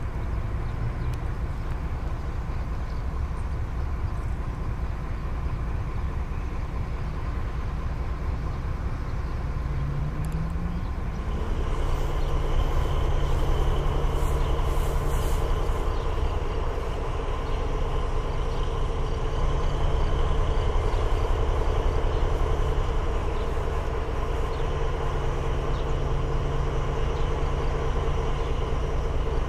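Engine of a Ganz-MÁVAG M41 diesel-hydraulic locomotive running as the train approaches. About ten seconds in the engine note rises, then holds at a louder, steady pitch.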